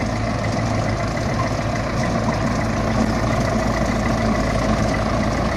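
Engine of a miniature amusement-park train running steadily as the train moves along its track, a low, even hum.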